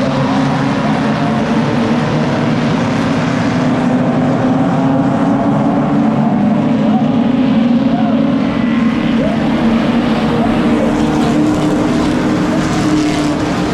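A pack of short-track stock cars running together around the oval, making a steady engine drone that rises slightly in pitch.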